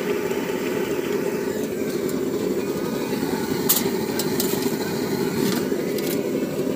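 Steady engine-like rumble, even throughout, with a few sharp clicks about four to six seconds in.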